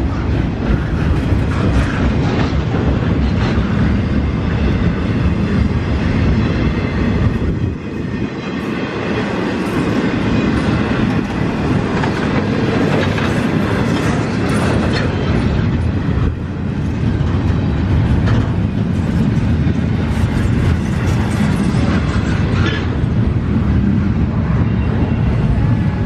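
Train cars rolling past on the Norfolk Southern line, wheels clattering over the rail joints in a steady, loud run of clicks and rumble.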